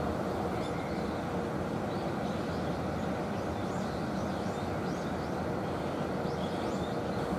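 Steady machinery hum with a faint steady tone running through it, and short high bird-like chirps repeating over it.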